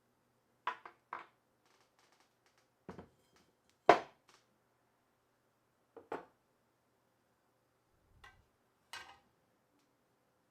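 Small metal parts and tools being handled and set down on a bench: a scattered series of short clinks and knocks, the loudest about four seconds in.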